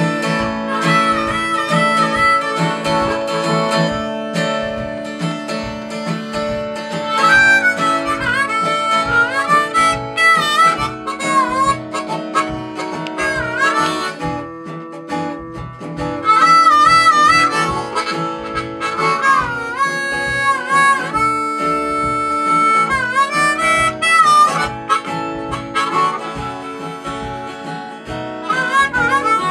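Acoustic guitar strummed in a steady rhythm with a harmonica playing a melody over it, its notes bending in pitch, the harmonica louder from about seven seconds in.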